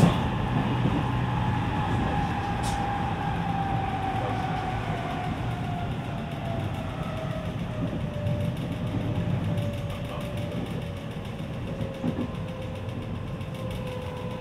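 Onboard running sound of a JR West 207 series electric train: rumble of wheels on rail under a whine from its VVVF inverter-driven traction motors that falls slowly in pitch as the train slows. A sharp click right at the start.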